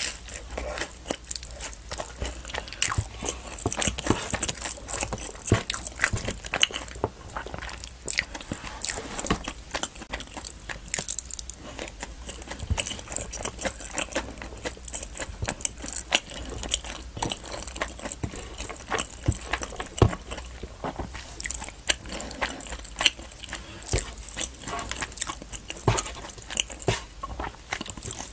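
Close-miked eating sounds: a person chewing soft naan bread soaked in butter chicken curry and spoonfuls of biryani rice, with frequent wet lip smacks and mouth clicks at an irregular pace.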